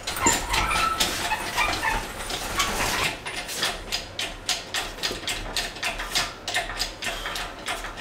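Steel engine crane being handled and taken down: squeaks and metal clatter, then a steady run of quick clicks from about halfway through.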